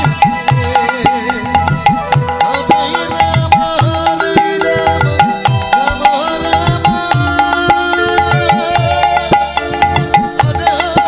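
Instrumental passage of harinam kirtan music. A khol drum plays a steady rhythm of bass strokes that bend down in pitch, about two a second, under a sustained melody line.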